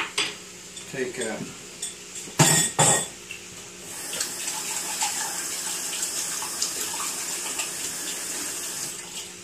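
Kitchen tap running warm water into a stainless steel sink, filling a measuring cup: a steady hiss that starts about four seconds in and stops near the end. Before it come two loud knocks, about half a second apart.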